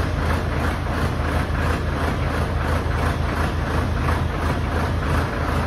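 Tractor's diesel engine running steadily while it powers the hydraulics of a crash barrier installation machine.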